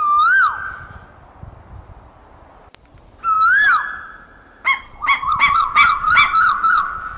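Asian koel calling: two loud, clear whistled notes that each rise and then drop, about three seconds apart, then a quick run of about nine shorter notes, roughly four a second.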